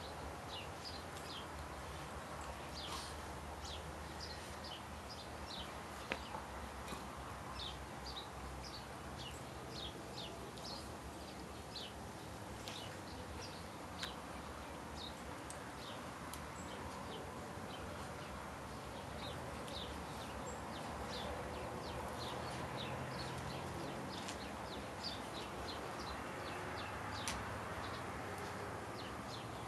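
Small birds chirping over and over in short, high notes against a steady outdoor hiss, with a faint low hum coming in about two-thirds of the way through.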